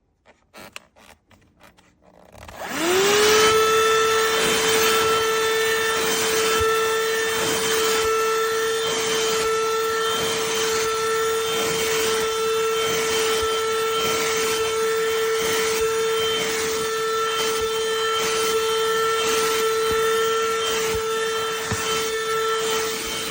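BSRCO cordless handheld vacuum switched on after a few faint clicks: its motor spins up to speed in under a second, rising in pitch, then runs steadily with a strong even tone over a rush of airflow.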